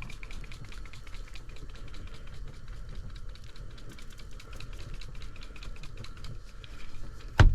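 Cajun blackened seasoning being shaken out of its container onto tilapia fillets: a rapid run of light ticks, over a steady low rumble, with two loud knocks near the end.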